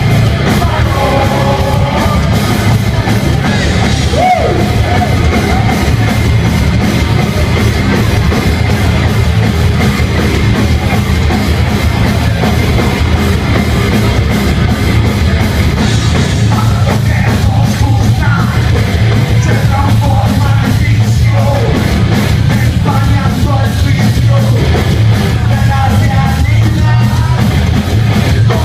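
Heavy metal band playing live: drum kit, bass and electric guitars, loud and unbroken, with shouted vocals coming in over the second half. Heard from the crowd in front of the stage.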